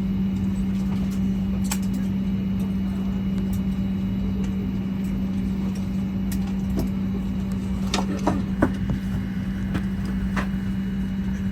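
Steady cabin noise inside a Boeing 737 MAX 8-200 cabin: an even air-conditioning rush with a strong steady low hum. A few short clicks come about eight seconds in and again about ten seconds in.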